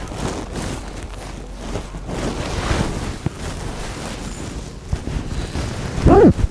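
Wind buffeting the microphone on a moving canal boat over a steady low hum. A brief loud pitched sound rises and falls near the end.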